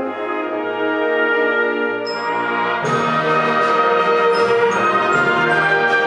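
Wind band playing: sustained brass chords, then the fuller ensemble comes in about three seconds in and the music grows louder.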